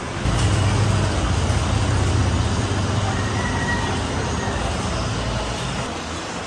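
A motor vehicle's engine passing on the street over traffic noise: a loud, low rumble that comes in just after the start and eases off near the end.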